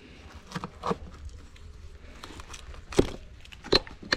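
A few sharp wooden knocks and taps as formwork boards are worked loose from freshly cast concrete, the loudest about three seconds in.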